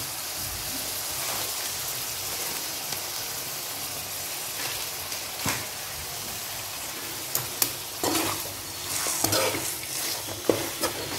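Chicken pieces with tomato and onion sizzling steadily in oil in a metal kadai. About seven seconds in, a metal spatula starts scraping and clacking against the pan as the mixture is stirred.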